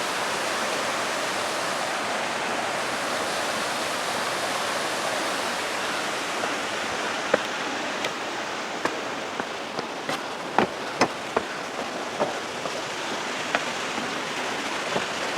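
Steady rush of a waterfall in the canyon below, heard from a distance, with a scatter of short sharp taps in the second half.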